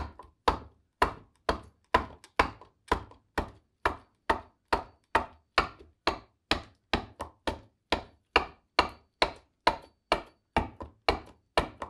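Bowl adze chopping into the hollow of a green black walnut bowl: a steady run of sharp wooden strikes, about two a second, as the inside of the bowl is cleaned up.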